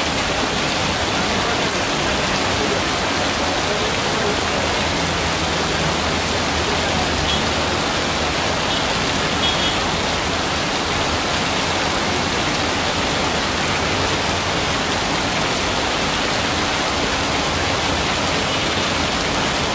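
Heavy rain pouring down in a steady, unbroken hiss, splashing onto standing water and pavement.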